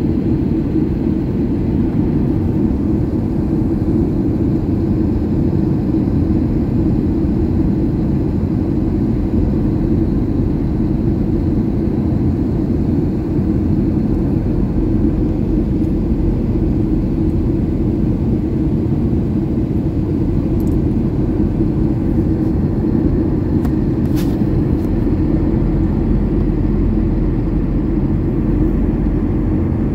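Steady jet engine and airflow noise heard inside an airliner cabin, a deep, even rumble. A brief faint click sounds about 24 seconds in.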